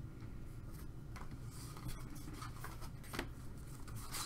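Baseball trading cards being shuffled through by hand, the card stock sliding and rubbing against itself, with a few soft flicks.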